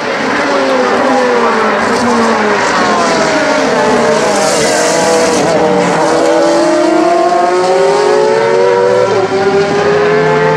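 Racing car engines running hard on a track, several engine notes at once: the pitches fall over the first few seconds, then climb steadily as the cars accelerate.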